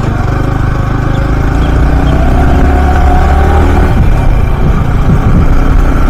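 Yamaha R15M's 155 cc single-cylinder four-stroke engine running while riding, its pitch rising gently for a couple of seconds midway as it gathers speed.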